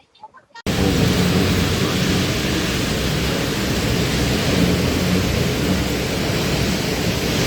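Heavy rainstorm with strong wind: a steady, loud rush of noise that starts abruptly just under a second in.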